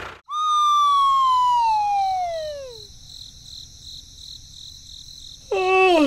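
Cartoon sound effects: a long falling whistle that slides down in pitch for about two and a half seconds, over a steady night-time chirping of crickets. Near the end a second, shorter falling tone comes in steps.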